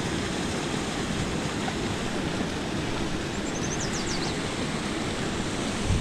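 Steady rush of running water from a small spillway, with a single knock near the end.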